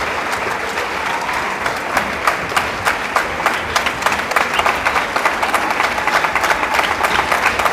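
A large audience applauding, many hands clapping in a steady, dense patter.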